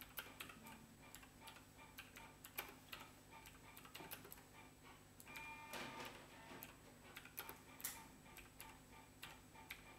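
Computer keyboard being typed on: faint, irregular key clicks.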